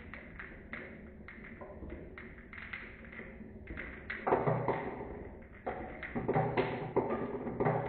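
Marbles rolling and clacking down a HABA wooden marble run, a quick stream of clicks and knocks that grows louder and busier about four seconds in.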